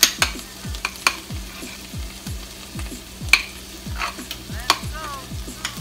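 A spoon stirring batter in a bowl, clicking against the bowl's side at an irregular pace, over the steady sizzle of food frying in pans.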